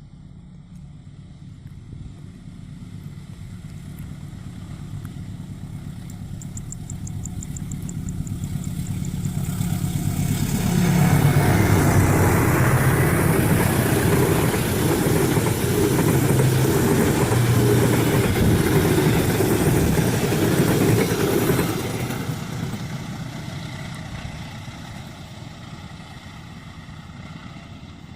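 Diesel-locomotive-hauled passenger train approaching and passing. The locomotive's engine drone builds for about ten seconds, then the engine and the rolling carriages are loud for about ten seconds before the noise fades away.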